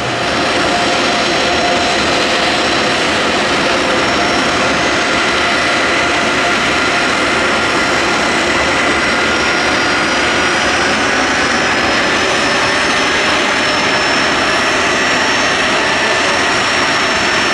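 A B-1B Lancer bomber's four afterburning turbofan jet engines: loud, steady jet noise. Faint whining tones rise slowly in pitch through the middle.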